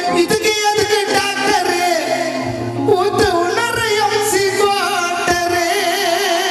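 Live Tamil gana song: a man singing into a microphone over a band accompaniment with percussion.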